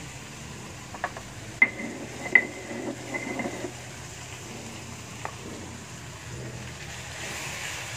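Kitchen utensils and dishes being handled: a few sharp clinks and knocks with a brief ring, closely spaced between about one and two and a half seconds in, a little clatter after them, and one more click past the middle, over a low steady hum.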